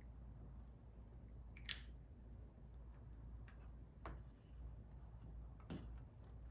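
Near-quiet handling with a few faint, short clicks, the sharpest about two seconds in: small spring clamps being opened and snapped onto the rubber weather stripping and plastic cowl panel.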